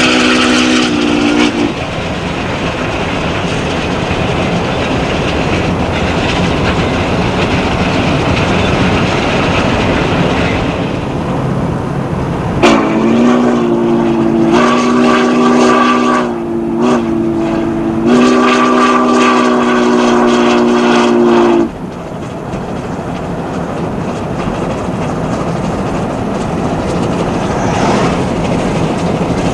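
Southern Pacific 4449, an oil-fired steam locomotive, running at speed. Its steam whistle sounds several tones at once: a short blast at the start, then a string of long blasts from about twelve to twenty-one seconds in, the last held for several seconds. Between the blasts there is the steady rush of the running locomotive.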